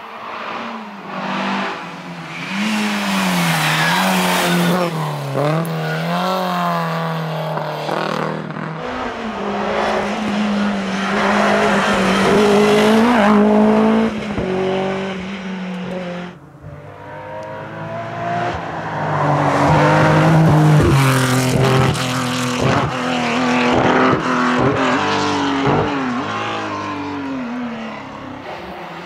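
Historic rally cars driving flat out on a stage, one after another: engines rev hard, climbing and dropping in pitch through gear changes. The sound breaks off abruptly twice, about nine seconds in and again near the middle, as each car gives way to the next.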